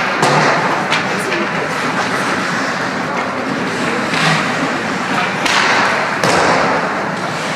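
Ice hockey play in a rink: scattered sharp thuds and clacks of puck, sticks and boards, several strikes a second or more apart, over steady rink noise with hissing scrapes.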